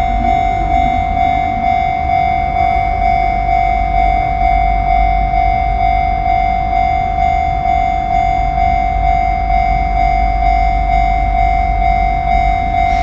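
Japanese railway level crossing's electronic warning bell ringing continuously in a fast, steady repeating tone, with a low rumble underneath.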